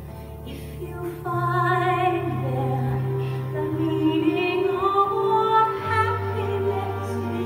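Music playing for the dance: a female voice sings long held notes over sustained low chords, the voice coming in about a second in.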